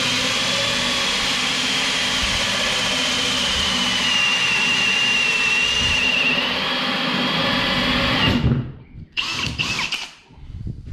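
Cordless drill boring through a timber floor sheet with a hole saw: a steady motor whine with cutting noise that dips slightly in pitch midway under load, then stops about eight seconds in, followed by a few short bursts.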